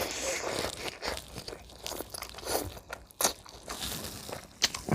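Close-miked eating: a mouth crunching and chewing food, with wet irregular mouth noises and a few sharp crunches.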